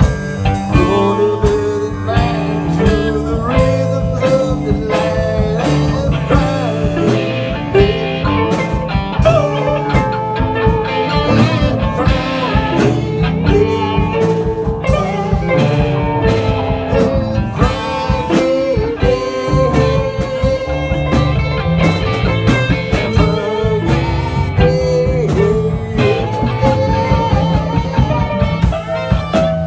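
A live band jamming in a blues-rock style: electric guitars and a drum kit playing steadily, with a man singing into a microphone.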